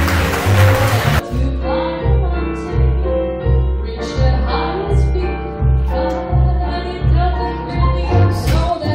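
Live jazz: a woman singing into a microphone over an upright double bass playing a steady line of about two notes a second, with keyboard accompaniment. A wash of noise fills about the first second, before the voice comes in.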